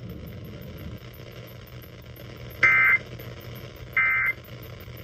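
Emergency Alert System end-of-message data bursts on an FM radio broadcast: two short, identical screechy bursts of SAME digital data tones, about a second and a half apart, the first a little past halfway through. They mark the end of the tornado-warning alert. Under them is a faint steady hum.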